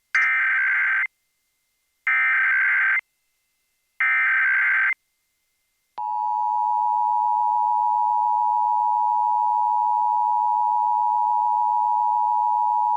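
Emergency Alert System tones for a national test: three one-second bursts of SAME header data about a second apart, then, from about six seconds in, the steady two-tone EAS attention signal.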